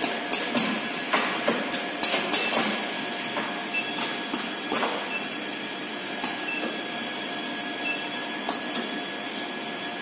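Automatic thermocouple welding and crimping machine running: an irregular series of sharp mechanical clicks and clacks from its moving parts, busiest in the first few seconds and thinning out later, over a steady hiss and faint hum.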